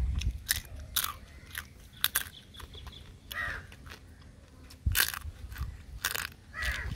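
Cooked crab shell cracking and crunching as a person bites and chews crab, with sharp cracks scattered through, the loudest about five and six seconds in.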